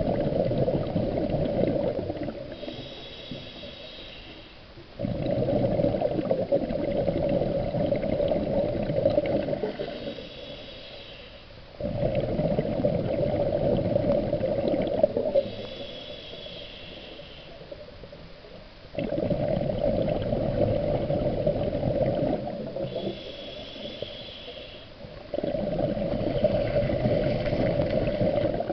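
Scuba diver breathing through a regulator underwater. Long bursts of exhaled bubbles rumble about every six to seven seconds, five in all, and each is followed by a quieter inhale with a thin hiss.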